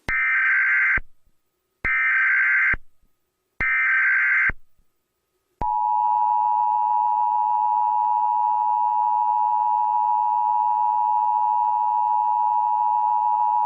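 Emergency Alert System (EAS) header: three short bursts of buzzy digital data tone about a second long, then, about five and a half seconds in, the steady two-tone EAS attention signal held for about eight seconds. Together they announce the start of a new emergency alert.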